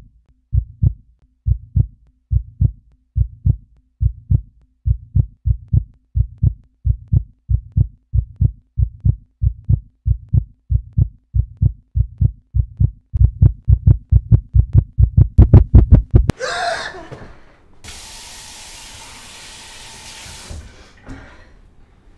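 A heartbeat, paired low lub-dub thumps a little over once a second, quickening and growing louder before it cuts off abruptly about 16 seconds in. A brief rushing sound follows, then a sink tap runs for about three seconds.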